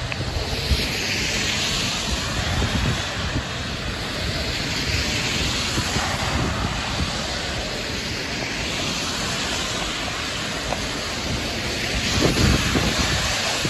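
Cars passing one after another on a flooded, rain-soaked road, their tyres hissing through standing water, each hiss swelling and fading as a car goes by, with wind buffeting the microphone.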